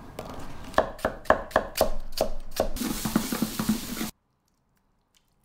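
A run of about eight evenly spaced knocks of a knife chopping on a wooden cutting board. Then diced vegetables and tomato paste sizzle in a frying pan, stirred with a spatula, until the sound cuts off suddenly a little past halfway.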